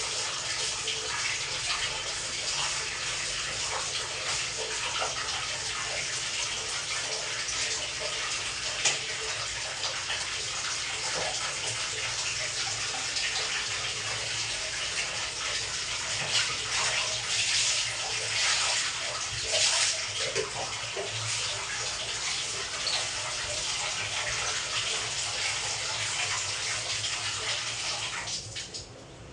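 Water running steadily from a tap with irregular splashing, as in a bathroom being washed down. It stops about a second before the end.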